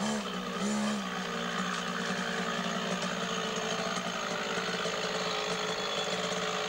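Small Beta 50cc two-stroke minitrial motorcycle engine: two short throttle blips in the first second, then idling steadily.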